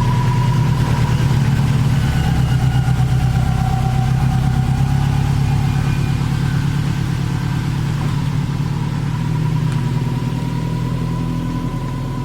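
2004 Subaru WRX engine running steadily, with a faint high whine alongside.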